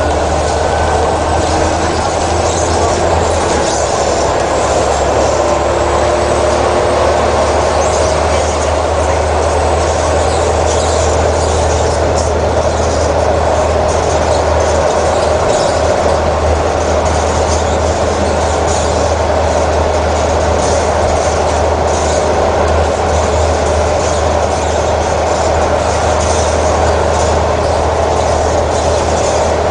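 Volvo B12M bus's DH12 straight-six diesel engine (340 hp) running steadily, with a deep drone and a steady rumble and hiss of mechanical noise over it; the low drone shifts slightly a few seconds in and again about halfway.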